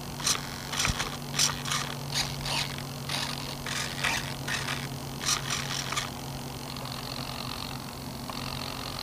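Short bursts of whirring from the E-flite P-51D Mustang's control servos, about a dozen in the first six seconds, as the control surfaces are worked in a pre-flight check. A steady low hum runs underneath.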